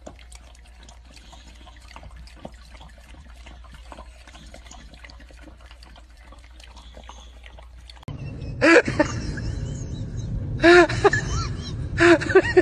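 Puppy lapping milk from a metal bowl: faint, quick wet licking clicks. About eight seconds in, louder short rising-and-falling cries start and repeat several times.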